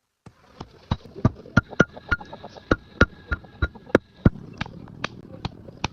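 Sharp, irregular knocks and taps of a tool working a coconut shell, about three a second and uneven in strength.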